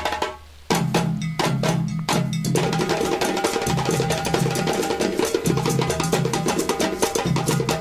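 Background music with a fast percussion beat of rapid clicks over a steady bass line; it dips briefly near the start and comes back in full under a second in.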